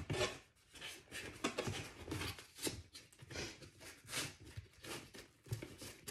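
Cardboard box flaps scraping and rubbing as hands press and tuck them in, a run of short irregular scrapes and rustles.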